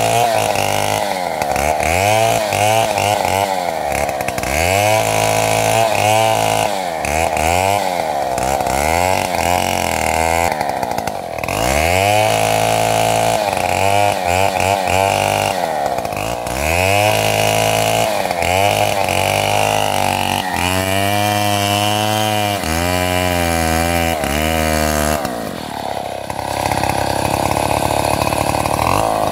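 Stihl MS 070 two-stroke chainsaw cutting a large tree trunk under full throttle. The engine pitch repeatedly drops under load and climbs back, about once a second, as the chain bites into the wood.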